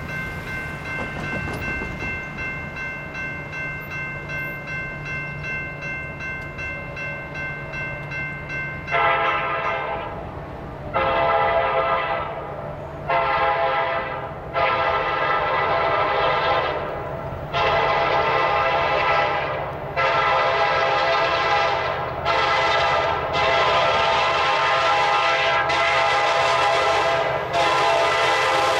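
KCS SD70MAC diesel-electric locomotive's multi-note air horn sounding a string of long blasts with short breaks, starting about nine seconds in, over the low rumble of the approaching freight train's diesel engines.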